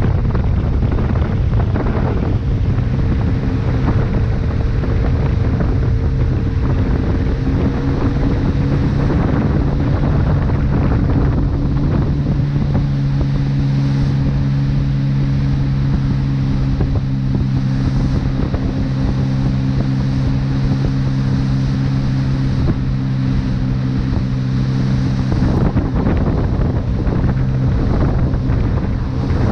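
Steady drone of the engine of a watercraft towing a water-skier at speed, with wind buffeting the microphone and the rush of churning wake water.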